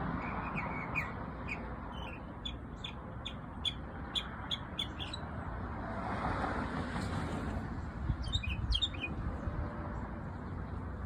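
A bird singing: a run of short, sharp chirps, about three a second, for the first five seconds, then a quicker cluster of chirps near the end, over steady low background noise.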